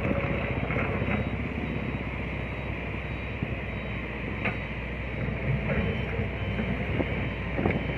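Concrete mixer truck's diesel engine running steadily as the truck maneuvers slowly on sand.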